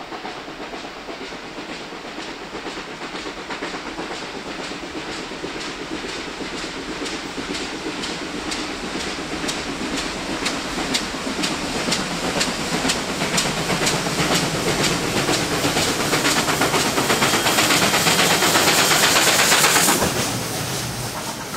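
NSW 59 class 2-8-2 steam locomotive 5917 working hard, its exhaust beating in a quick, even rhythm that grows steadily louder as it approaches. The beat drops away suddenly near the end as the engine passes, leaving the rumble and clatter of the carriage wheels.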